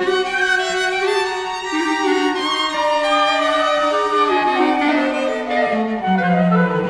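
Classical string music: violin over cello, playing slow, sustained notes in several voices at once.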